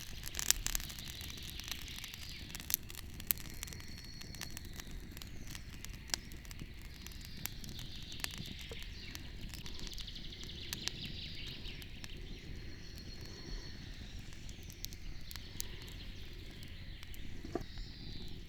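Wood fire crackling with scattered small pops over a steady low rumble, with birds calling faintly in the background.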